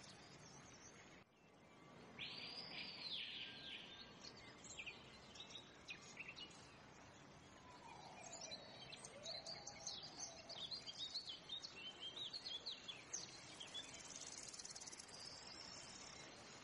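Faint nature ambience: birds chirping and whistling, with insects trilling near the start and again near the end, over a steady hiss. It briefly drops out about a second in.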